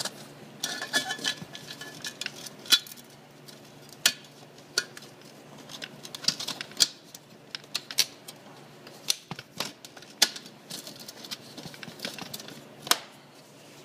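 Irregular metal clicks and clanks from the steel lid of a homemade charcoal gasifier drum being fitted and clamped shut, a few sharper knocks ringing briefly.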